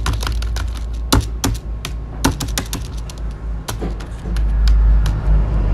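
Computer keyboard typing: irregular key clicks, quick at first and sparser after about three seconds, over a low steady hum.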